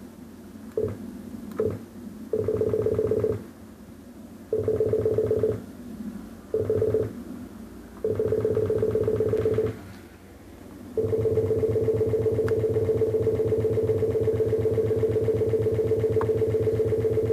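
Computer beeping with a steady, buzzy, mid-pitched tone that is set off by using the mouse. There are two short beeps, then four longer ones lasting up to about two seconds, and then the tone holds without a break from about two-thirds of the way in.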